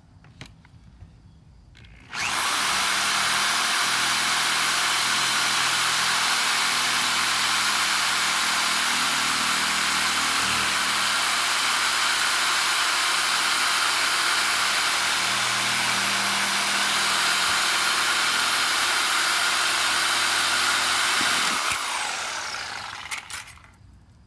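Electric power saw cutting through the plastic housing of a refrigerator water filter cartridge, running steadily with a thin high whine. Near the end it is switched off and the motor winds down, its whine falling.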